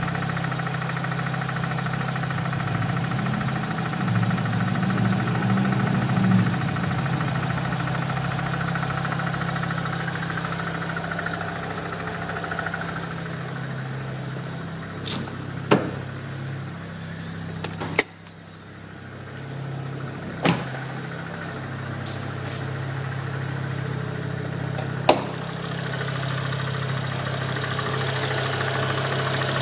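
BMW N54 twin-turbo inline-six in a 335i idling, with a tapping that the owner suspects is a bad lifter. A few sharp knocks stand out over the steady idle, and the sound briefly drops in level about halfway through.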